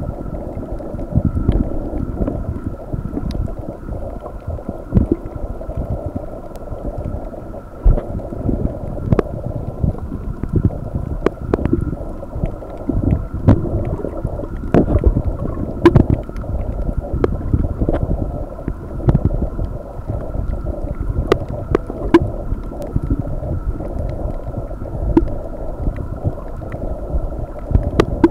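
Muffled underwater sound from a snorkeler's camera: a low wash of moving water with irregular sharp clicks and pops, and a faint steady high hum.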